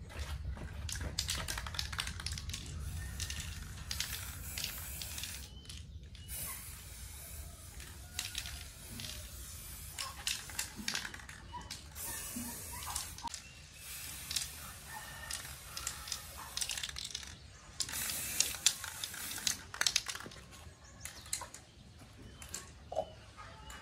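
Aerosol spray-paint can hissing in bursts of a second or two as the paint goes onto a bicycle's fender and frame, with rapid clicking and rattling in between.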